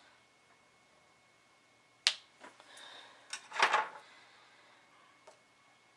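Diamond-painting pen picking up and pressing resin drills onto the canvas: a few light sharp clicks, with a short rattling cluster of taps about three and a half seconds in.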